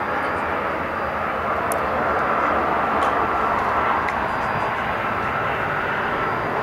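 Jet noise from a Bombardier CRJ-900's two rear-mounted General Electric CF34 turbofans as the airliner rolls out along the runway after landing: a steady rushing sound that swells a little in the middle.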